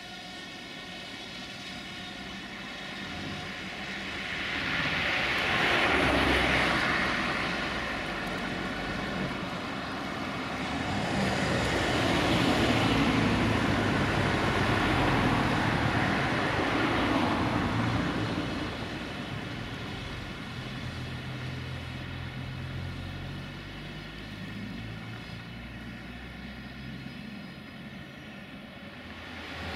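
Steady multi-toned whine of a drone's propellers, with broad rushes of noise that swell loud twice, briefly about five seconds in and at length from about eleven to eighteen seconds.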